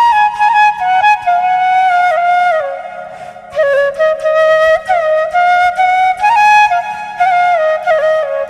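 Background music: a solo flute playing a slow melody that steps and bends in pitch, over a faint low accompaniment. It softens briefly about three seconds in.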